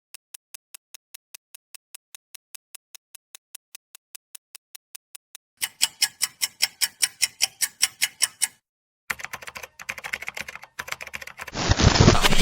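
A run of sound effects: faint, evenly spaced clicks about four a second, then louder clicks a little faster, like keys being typed. After a short gap comes a crackling noise, and near the end a loud rushing noise.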